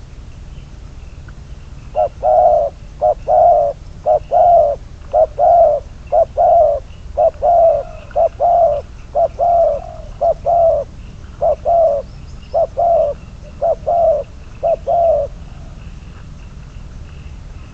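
Decoy spotted dove cooing: a long series of short coos in quick groups, starting about two seconds in and stopping a couple of seconds before the end.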